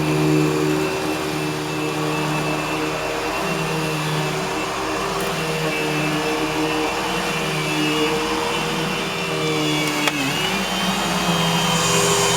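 Eureka Boss Smartvac 4870 upright vacuum running on carpet: a steady motor whine with a low hum that swells and fades every second or two, plus a short click about ten seconds in where the pitch briefly dips. The owner puts the odd sound down to the brushroll clutch going bad.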